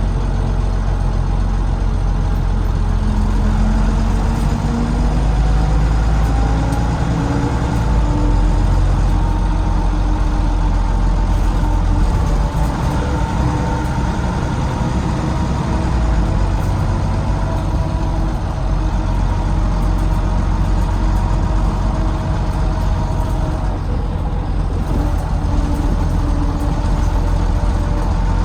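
Volvo B9TL double-decker bus with a Volvo D9B diesel, heard from inside with a heavy low rumble as it pulls along. A whining tone climbs in pitch with speed, holds steady, then climbs again near the end. This is the odd whine on acceleration whose cause the owner can't place: gearbox, cooling fan or axles.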